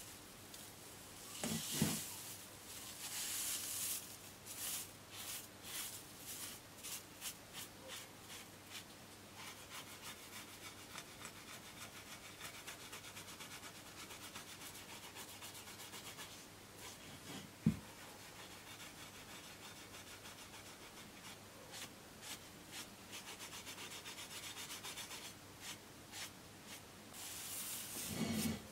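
Foam sponge brush rubbing in quick, repeated strokes over gold leaf on a vase, brushing away the loose excess leaf. There are two light knocks, one near the start and one about two-thirds through.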